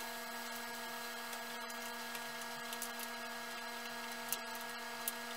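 Steady hiss from a lit gas stove burner under a wok of boiling water, with two faint ticks near the end.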